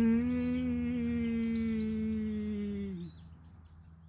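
A man's long, drawn-out wail of "why", held on one note that sinks slowly in pitch and then drops away about three seconds in, over a steady low hum and faint bird chirps.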